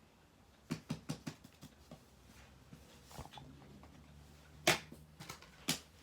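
Small plastic fidget toys being handled: a quick run of four sharp clicks and taps about a second in, a few lighter taps, then two louder clicks near the end. A faint low hum runs under them from about two seconds in.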